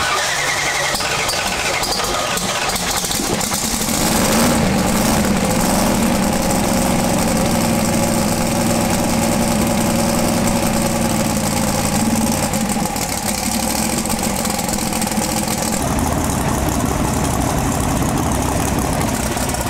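Twin-turbocharged pro mod drag-racing engine idling steadily while it is warmed up to temperature. It gets louder about four seconds in, and its note changes about four seconds before the end.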